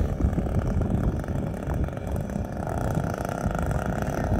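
Wind buffeting the microphone on open lake ice, with a steady motor hum coming in about two and a half seconds in.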